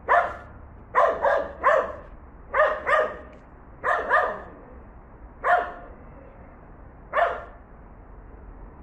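A dog barking, about ten short barks in ones, twos and threes with pauses between.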